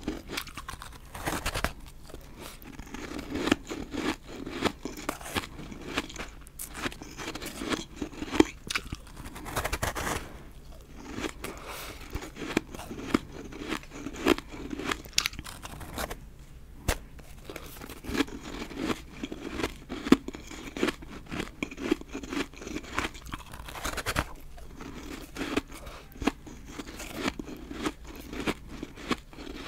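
Biting and chewing a freezer-hardened snowball of refrozen powdery ice that is dry and powdery inside: dense, crisp crunching in runs, each bite followed by a stretch of chewing crunches, with a couple of short pauses.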